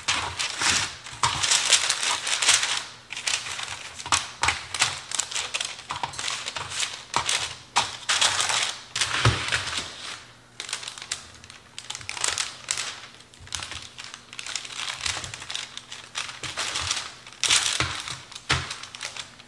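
Parchment paper crinkling and rustling in irregular bursts as a sheet of dough is rolled up tightly on it.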